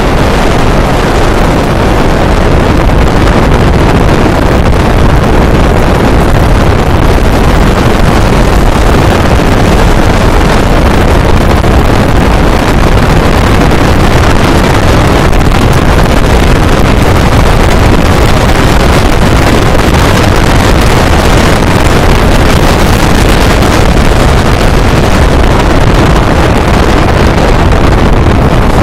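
A motorcycle riding at speed, its engine and road noise largely buried under loud, steady wind on the microphone.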